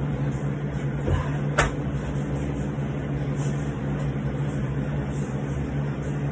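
A steady low mechanical hum fills the room, with one sharp knock about a second and a half in.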